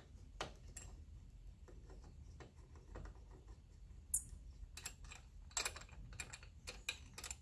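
Scattered light clicks and taps of metal hardware being handled as the massage chair's leg-rest latch is lifted open, growing into a cluster of sharper clicks in the second half.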